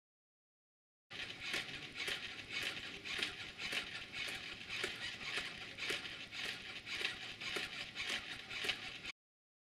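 A human hand clapping against a robot's rigid hand, with the robot arm set to high stiffness, at an even pace of about two claps a second over a steady hiss.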